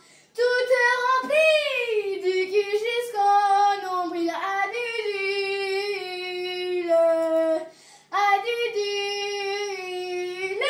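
A young girl singing alone in long, drawn-out held notes, breaking off briefly about eight seconds in before one more held note.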